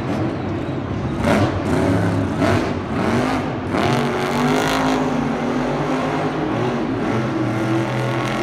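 Monster truck's supercharged V8 engine revving up and down repeatedly as the truck pulls a wheelie and manoeuvres on the arena dirt.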